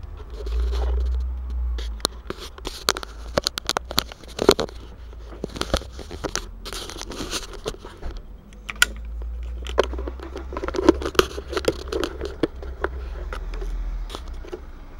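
Scraping, scratching and clicking handling noise from the camera being moved about, over a low rumble.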